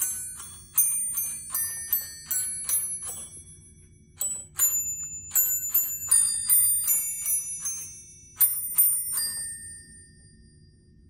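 A musical Christmas bell string (a holiday glockenspiel) plays a tune note by note, each small bell struck and left ringing. The melody pauses briefly about three and a half seconds in, then runs on until the last notes ring away about nine seconds in.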